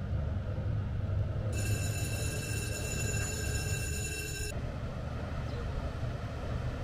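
A high, steady electric warning signal at a lock sounds for about three seconds, starting about a second and a half in and cutting off suddenly, over a steady low rumble.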